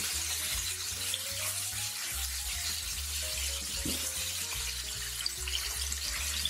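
Cubes of pork belly sizzling in rendered fat in a frying pan, a steady sizzle while they are turned with silicone-tipped tongs. Soft background music with low sustained notes plays underneath.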